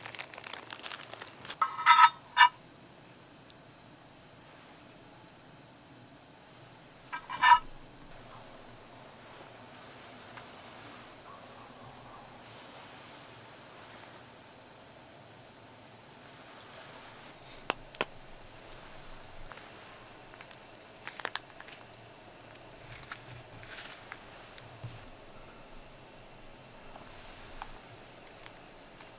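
Steady high-pitched trilling of insects such as crickets, with two short, loud, raspy calls about two and seven seconds in and a few faint clicks later.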